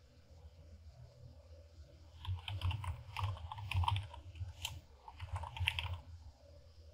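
Computer keyboard typing: a quick run of keystrokes starting about two seconds in and stopping about a second before the end, over a low steady hum.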